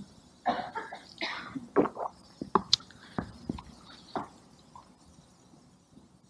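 A person coughing and clearing their throat in a run of short bursts, which stop about four seconds in.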